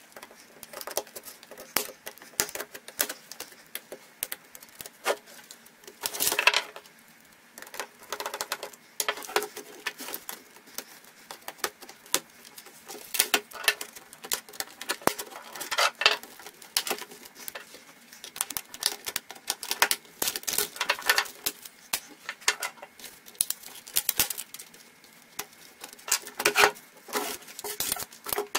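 Irregular clicks, taps and scrapes of a Hasee Slikroad Q310N laptop being taken apart by hand on a wooden bench: the keyboard pried up with a small tool and plastic and metal parts lifted and set down, with a few louder scraping sounds.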